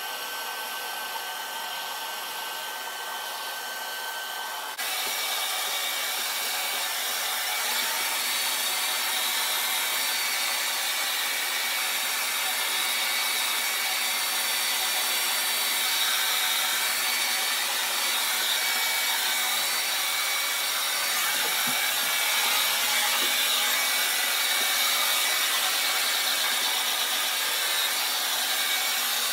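Handheld Revlon hair dryer blowing steadily, a continuous rush of air with a faint motor whine. About five seconds in it suddenly gets louder and brighter, then holds steady.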